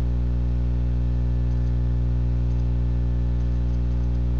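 Steady low electrical hum with a stack of overtones, loud and unchanging, with a few faint ticks over it.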